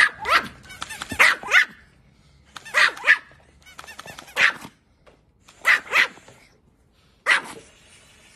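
Pomeranian barking: short, high-pitched yaps, singly and in pairs, about every second and a half.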